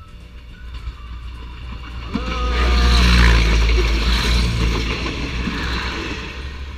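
Thai railway train passing at speed. Its rumble builds to its loudest about three seconds in, then fades away.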